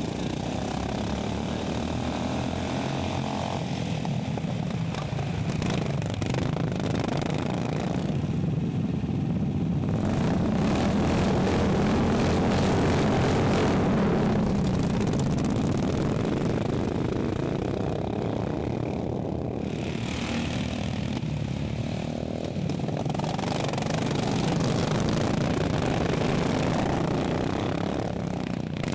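Racing lawn mower engines running hard, the sound swelling louder and fading as the mowers come past, loudest around the middle and again near the end.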